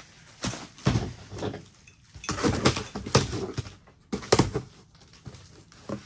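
Cardboard box being set down on a table and slit open with a knife: a series of knocks and thumps with cardboard scraping and tearing.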